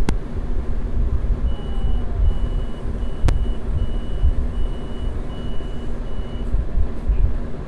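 Double-decker bus's diesel engine idling with a steady deep rumble. About a second and a half in, an electronic warning beeper starts and sounds seven evenly spaced beeps, stopping shortly before the end, and there are two sharp clicks.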